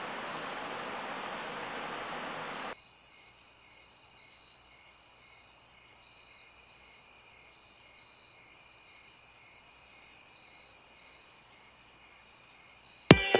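Steady, high-pitched chirring of insects, with a low hiss underneath that cuts off suddenly about three seconds in. Electronic music with a beat starts right at the end.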